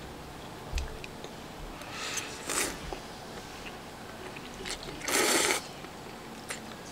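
Spaghetti being eaten: several short, noisy slurps of noodles, the loudest lasting about half a second near the end, with a few light clicks of forks between them.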